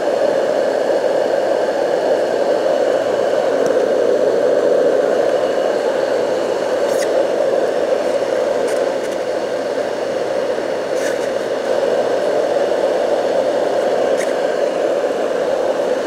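Marpac Dohm DS white noise machine running on its high speed: the steady rushing noise of its internal fan moving air through the vents, with a few faint clicks.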